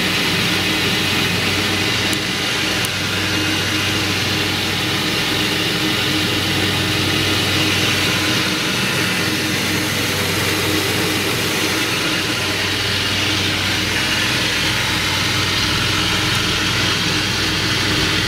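Fall-Line wet-sanding ski tuning machine running steadily: a motor hum under an even hiss from its spinning sanding belts and wheel.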